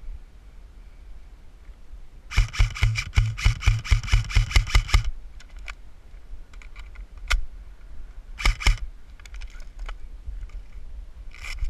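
Airsoft gun firing: a rapid string of shots lasting about three seconds, then a single shot and a short burst a few seconds later, and another short burst near the end.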